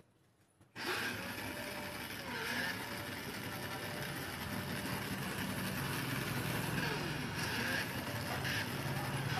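Electric drive motor and plastic gearbox of a children's ride-on toy vehicle running. It starts about a second in, then runs steadily with a low hum and a whine that rises and falls a few times.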